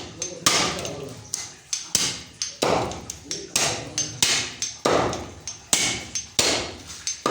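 Butcher's cleaver chopping through goat leg on a chopping block, sharp blows repeated about one and a half times a second, each with a brief ring.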